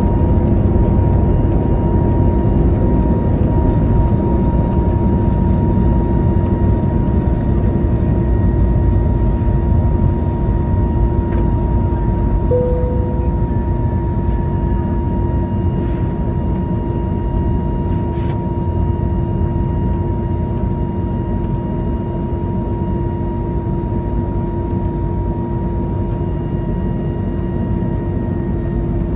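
Cabin noise of an Airbus A321neo's twin turbofan engines at takeoff thrust, heard from a window seat near the wing, through the takeoff and initial climb: a steady rush of engine noise with two held tones. It grows slightly quieter toward the end.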